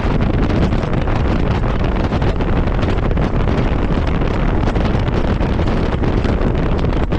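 Loud, steady wind buffeting the microphone of a camera on a moving motorcycle, with the motorcycle's engine running underneath.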